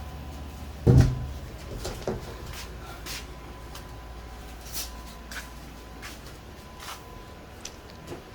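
Handling knocks: one heavy thump about a second in, then scattered light knocks and clicks, over a low steady hum.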